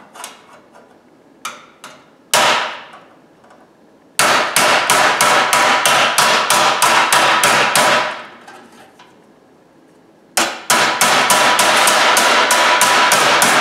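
Hammer striking a sheet-steel panel held over the edge of a steel workbench, bending it into a flange. A few single blows come first, then two fast runs of rapid blows, about four to five a second, with the metal ringing.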